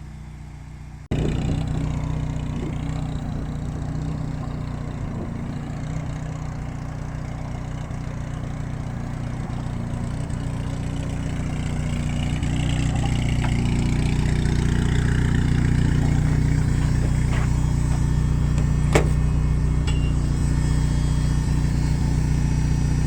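Nissan SR20DET turbocharged inline-four running steadily while its engine control unit is being tuned. It comes in suddenly about a second in, and its note rises a little about halfway through, then holds.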